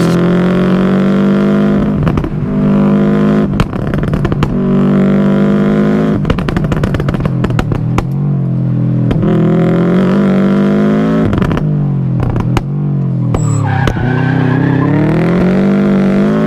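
Subaru WRX turbocharged flat-four engine revving hard, its pitch climbing, breaking off and falling again several times, with a deep drop and a fresh climb near the end.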